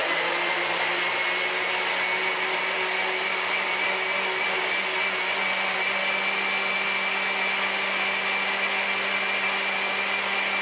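A roughly 30-year-old countertop blender running steadily, puréeing tomato, onion and V8 juice. Its whine climbs slightly in pitch as it runs.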